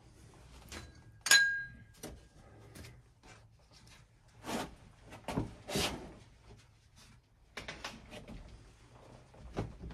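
A sharp clink that rings briefly, followed by scraping and rustling sounds of things being handled and a few light clicks.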